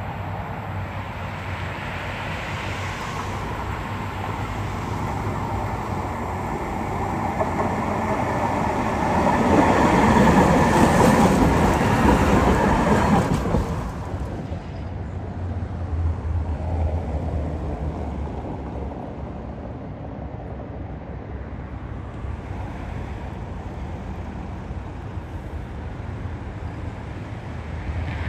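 Tram running on rails, building to its loudest about ten seconds in and dropping off sharply around fourteen seconds in. After that a quieter steady rumble with a low hum carries on.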